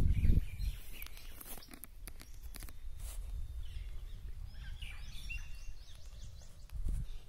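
Low rumble and rustling of a phone being handled and rubbed against clothing, loudest right at the start, with scattered clicks. Birds chirping briefly, a few short calls about five to six seconds in.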